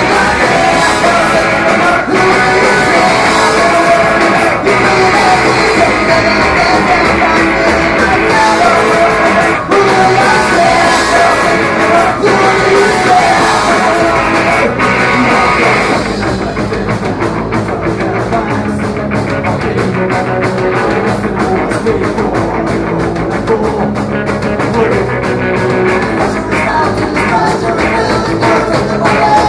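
Punk rock band playing live: distorted electric guitars, bass and a drum kit, loud and continuous. About halfway through, the sound turns less bright as the highest frequencies drop away.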